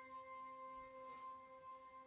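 Faint, slow background music: a steady drone of held, bell-like tones. There is a brief soft hiss about a second in.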